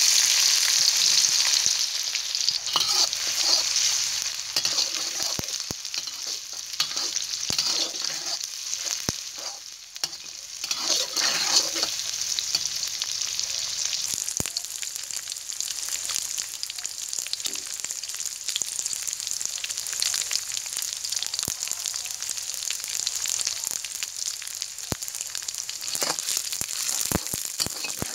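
Dried anchovies (ikan bilis) deep-frying in hot oil in a wok: a loud sizzle that starts suddenly as they hit the oil, then settles to a steadier frying hiss. A few sharp clicks and scrapes of a spatula stirring them come through it.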